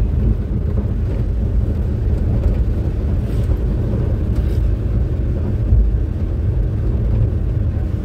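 Engine and road noise inside the cab of a moving vehicle being driven along a road: a steady low rumble.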